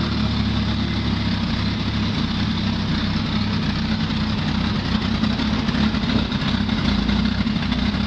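1981 Dodge D150's 225 slant-six engine idling steadily with the hood open, freshly fitted with a new intake/exhaust manifold gasket.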